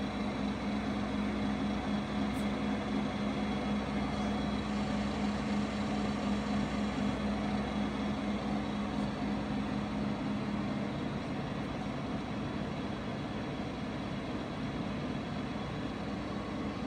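Mecca Turn 460x1000 engine lathe running under power, its headstock and feed gearing turning the lead screw to drive the carriage along the bed. A steady mechanical hum that eases off about eleven seconds in.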